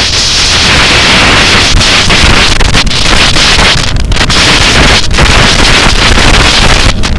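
Loud wind noise buffeting the microphone on a Ducati motorcycle at speed, a dense rushing roar that swells and dips briefly a few times.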